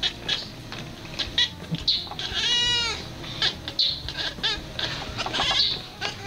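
A cat making a run of short, high-pitched chirping calls, with one longer meow-like call that rises and falls about two and a half seconds in.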